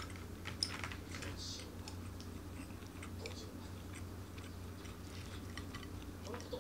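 A person chewing a mouthful of nori-wrapped rice ball: soft, irregular crackly mouth clicks, a few sharper ones in the first second, over a steady low hum.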